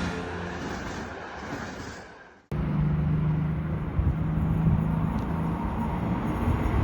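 Trackside outdoor noise with a low, steady hum, typical of an approaching train. It fades down, then cuts in abruptly about two and a half seconds in.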